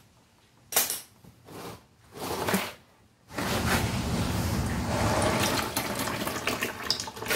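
Old gear oil pouring in a steady stream from the drain hole of an Audi A4 B7 manual transmission and front differential into a catch pan, starting about three seconds in. A few short knocks come before it.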